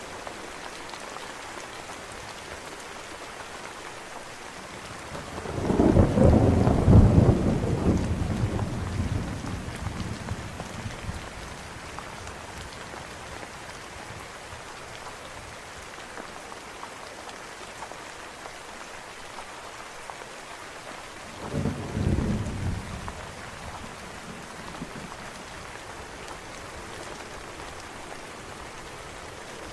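Steady rain falling, with two rolls of thunder: a loud one about six seconds in that fades away over several seconds, and a shorter, weaker one about twenty-two seconds in.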